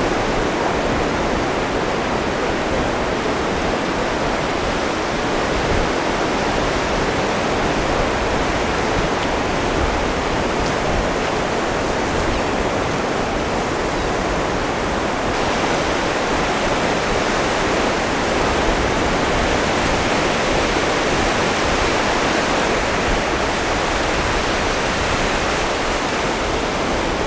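Ocean surf breaking on the shore: a steady, unbroken rush of waves.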